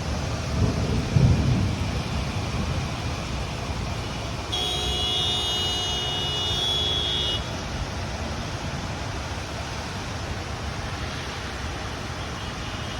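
Steady rain with the hiss of road traffic, and a low rumble about a second in. Midway through, a steady electronic-sounding tone holds for about three seconds, then cuts off.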